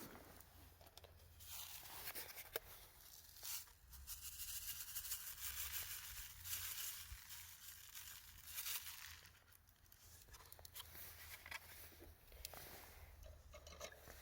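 Crinkling and rustling, with many small scattered clicks, as something is handled.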